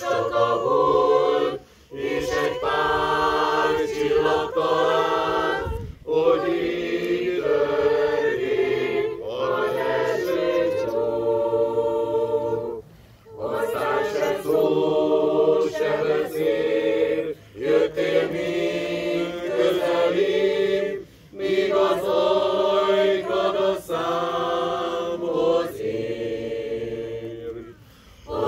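Mixed choir of women's and men's voices singing unaccompanied, in long phrases broken by short pauses.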